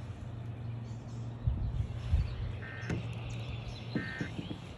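Emergency Alert System end-of-message data bursts broadcast over AM radio: two short two-tone digital warbles about a second apart, starting about two and a half seconds in, over a steady low hum. A few low thumps come just before the first burst.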